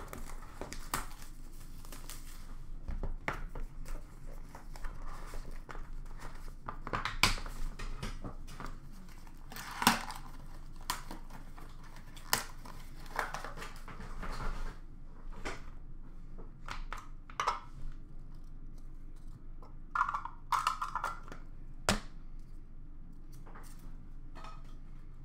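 Hands unwrapping and opening a sealed box of sports cards: plastic wrap crinkling and tearing, with cardboard being handled in a string of short rustles and clicks.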